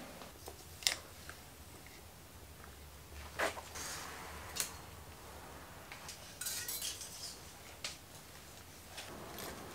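Metal parts and tools being handled on a bicycle in a workshop: scattered light clicks and clinks, a handful of separate sharp ones with a short rattle in the middle, while a cable is fed through a road bike's brake lever.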